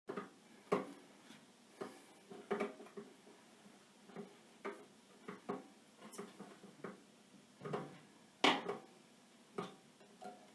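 Irregular knocks and clacks of hard objects being handled and set down on a workbench, with one louder clack about eight and a half seconds in.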